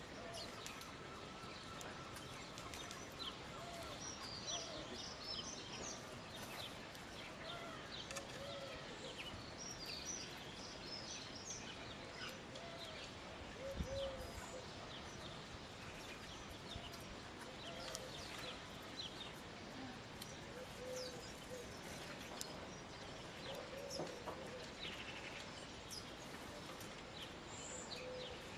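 European greenfinches chirping and twittering in many short, high notes, with a lower, rounded call from another bird repeating now and then. A single low thump about halfway through is the loudest moment.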